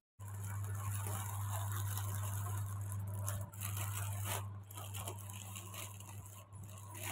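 Plastic courier mailer being torn open and the saree's clear plastic wrapping crinkling as it is handled, in irregular crackles with a few sharper rips, over a steady low hum.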